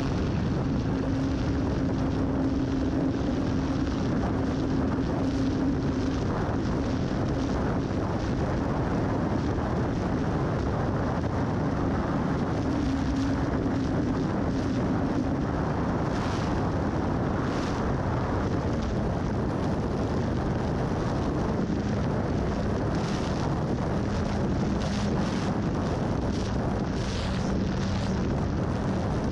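Onboard sound from a camera slung under a Carbon Cub S2 RC plane: wind rushing over the microphone, with the plane's electric motor and propeller humming steadily underneath, through the takeoff run and into flight. The propeller hum sits lower in pitch in the second half.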